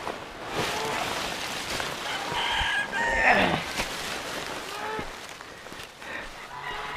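Short animal calls, several in turn, and a longer, louder call about three seconds in that falls steeply in pitch.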